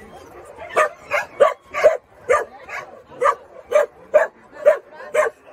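Young dog barking repeatedly in short, sharp barks, about two a second, starting about a second in.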